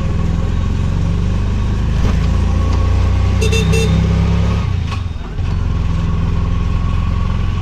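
Auto-rickshaw engine running as it drives along, heard from inside the open cabin. A short high beep comes about three and a half seconds in, and the engine note dips briefly about five seconds in.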